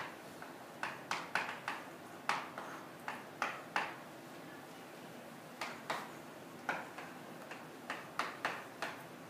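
Chalk tapping and scratching on a blackboard during handwriting: a string of sharp, irregular clicks in quick clusters, with a pause of about a second and a half around the middle.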